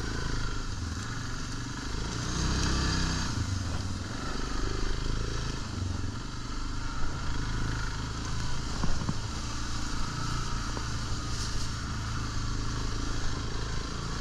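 ATV engine running steadily as the quad rides a rough dirt trail, with the rattle of the machine over bumps and a couple of sharp knocks about seven and nine seconds in.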